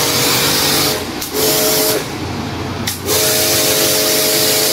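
Kärcher HD 5/11 high-pressure washer spraying: a loud, steady hiss of the jet over the hum of its electric motor and pump. The hiss cuts out briefly about a second in and again for about a second in the middle, the hum changing pitch each time. The pressure is holding stable, with the stuttering it was repaired for gone.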